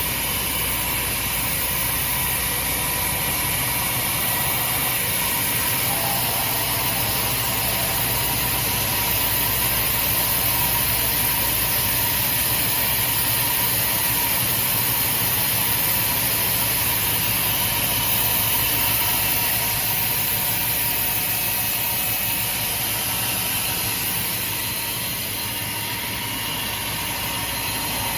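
Heavy double-head horizontal band saw running: a steady machine hum under a strong, constant high hiss.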